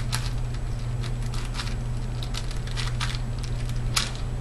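Irregular plastic clicks, several a second, from the layers of a Type C 46mm mini 4x4 puzzle cube being turned by hand. The outer layers on this cube tend to lock up and drag the neighbouring layer round with them.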